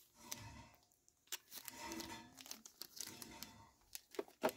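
Small plastic zip-lock bag of game dice being handled: faint crinkling of the plastic, with a few light clicks, the sharpest near the end.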